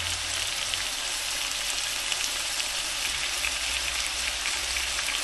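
Beef steak and onions frying in oil in a pan: a steady sizzling hiss with small crackles throughout.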